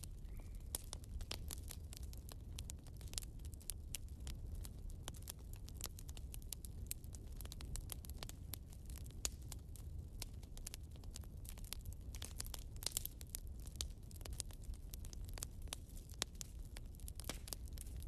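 Log fire in a fireplace crackling, with frequent irregular sharp pops and snaps from the burning wood over a low steady rumble.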